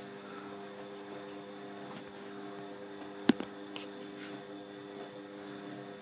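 Bosch WFF2000 washing machine running through its wash, a steady hum, with a few faint ticks and one sharp click about three seconds in.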